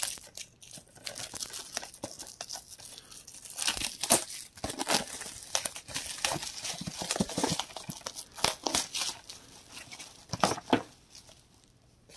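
Plastic shrink wrap on a steelbook case being torn and peeled off: irregular crinkling and crackling that dies away about a second before the end.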